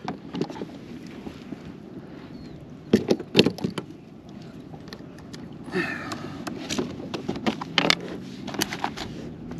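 Sharp knocks and clatters of something being handled, a cluster about three seconds in and more scattered ones in the second half, over a low steady hum.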